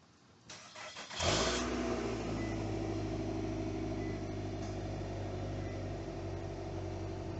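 A 2013 Nissan Altima's engine starting: a few clicks, then a short crank about a second in, and the engine settles straight into a steady idle.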